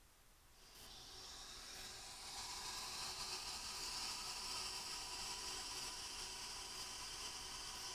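Water hissing through a partly opened supply valve into the newly plumbed PEX line as it fills and pressurises. The hiss starts about a second in, builds over the next couple of seconds, then holds steady.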